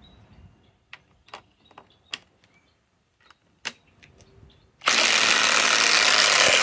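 Two Skil PowerCore 20 cordless impact drivers hammering side by side in reverse, backing screws out of a wooden block. They start together about five seconds in and run loud and steady. Before that come a few sharp clicks as the bits are set into the screw heads.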